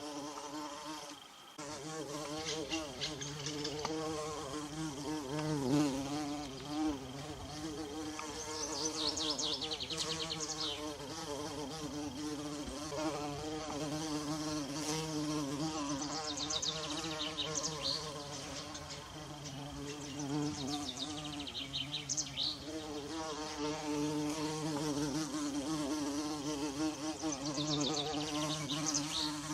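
Bumblebee buzzing in flight: a steady, low hum that wavers in pitch and loudness as it moves about. A higher, rapidly repeating chirp comes in briefly several times.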